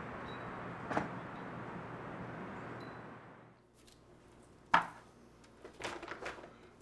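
Steady outdoor background hum, then a quiet room where food cans and containers are handled on a wooden table: one sharp clack, then a few lighter knocks about a second later.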